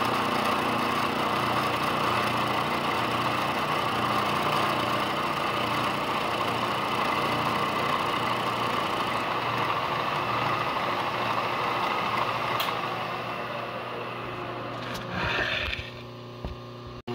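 Milling machine running, its end mill cutting a flat into a 1965 Ford Mustang steering box shaft in a steady run. The sound dies away about three-quarters of the way through as the spindle stops, with one short brief noise just before the end.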